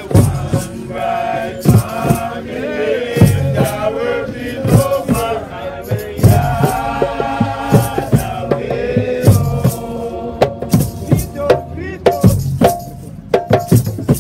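Nyabinghi drumming on hand drums and a large bass drum, with voices chanting a song over the beat. The chanting stops about ten seconds in, leaving the drums.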